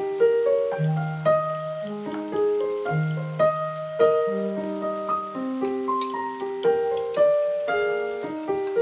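Background piano music: a slow melody of held notes over low bass notes.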